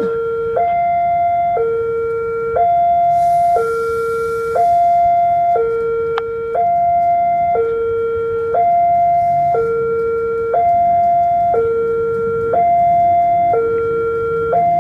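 Railway level-crossing warning alarm sounding its steady two-tone signal, a lower and a higher tone alternating about once a second, warning that a train is approaching.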